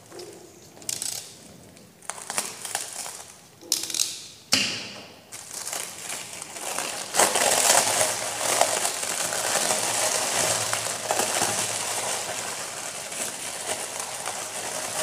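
Clear plastic wrapping being torn and pulled off a nylon tool pouch by hand, crinkling and crackling: a few separate crackles at first, then continuous crinkling from about five seconds in.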